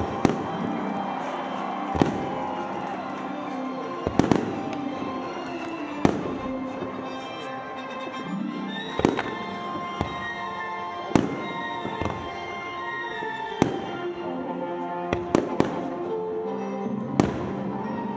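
Fireworks show: about a dozen sharp bangs of bursting shells, roughly one every one to two seconds and sometimes in quick pairs, over steady background music.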